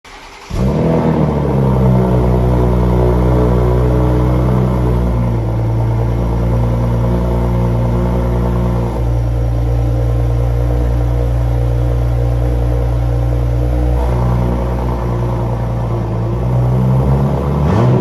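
BMW Z4 G29's 2.0-litre four-cylinder engine through a Guerrilla Bypass exhaust with the bypass valves open and the mid muffler deleted. It starts about half a second in with a quick flare of revs, settles into a steady idle, and gives a short rising rev near the end.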